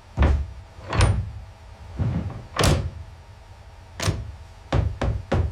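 A series of about eight sudden heavy mechanical thuds and clunks, unevenly spaced, the last three coming quickly one after another near the end.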